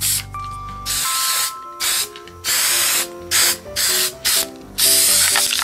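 Several short bursts of hiss from an aerosol can of gray primer spray paint, over background music with a stepping melody.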